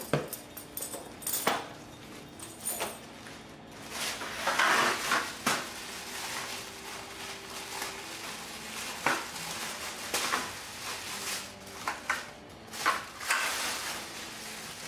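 Plastic packaging crinkling and rustling in bursts as a kayak paddle is pulled from its plastic sleeve, mixed with short clicks and knocks of handling.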